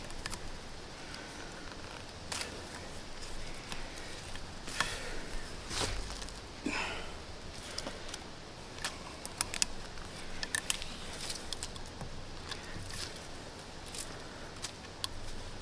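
Cord being wrapped and pulled tight to lash a wooden crossbar to a sapling post, heard as rustling handling noise with scattered small clicks and scrapes.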